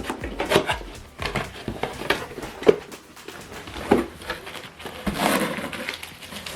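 Unboxing handling noise: packaging knocked and shifted in a series of short knocks and clicks, with a longer rustle about five seconds in.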